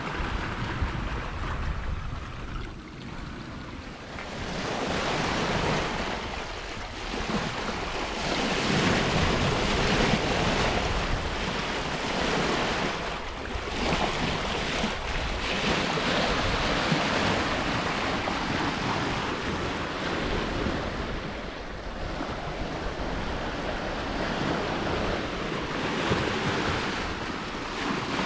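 Water rushing and splashing along the hull of a Westsail 32 sailboat under sail, its bow wave surging, with wind buffeting the microphone. The rush grows louder about four seconds in and rises and falls in surges after that.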